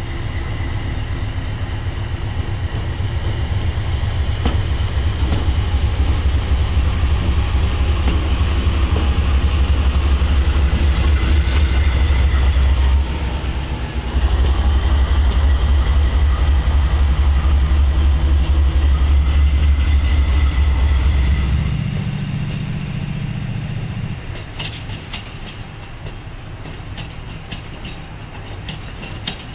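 Amtrak passenger train running past close by, a loud, heavy low rumble from its locomotive and cars that builds over the first twenty seconds. About 22 seconds in it drops to a quieter steady hum. In the last few seconds there are rail clicks.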